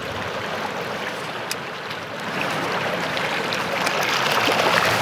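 Sea water washing around rocks and pebbles at the shoreline: a steady rush that swells louder over the last couple of seconds.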